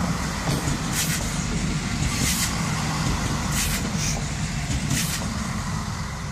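Two coupled SNCF X 73500 diesel railcars passing close by: a steady rumble of engines and wheels on the rails, broken by several sharp clacks from the wheels on the track, fading a little near the end as the train pulls away.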